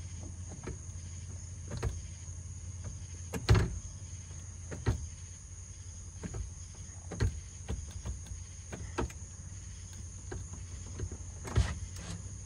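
Scattered sharp clicks and clunks, about seven, from the cab controls of a Chevrolet truck as the ignition key is turned and the column gear shifter worked, the loudest about three and a half seconds in. The engine does not crank at all. A steady low hum and crickets chirring run underneath.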